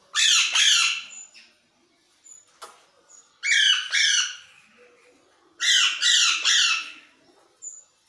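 Pet green parrot (Kashmiri mithu) squawking loudly in three bursts of harsh calls, each about a second long and made of two or three calls: at the start, near the middle and about three-quarters through.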